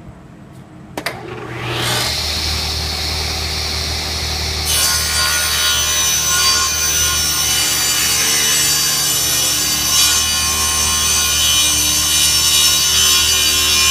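Table saw switched on with a click about a second in, its motor winding up to a steady running whine. From about five seconds in the spinning blade rips a thin strip of wood along the fence, the cutting noise laid over the motor until the end.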